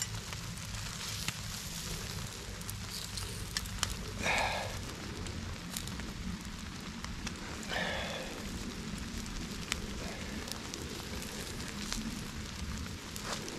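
Small wood campfire crackling steadily, with scattered sharp pops. Two brief louder sounds break in, about four and eight seconds in.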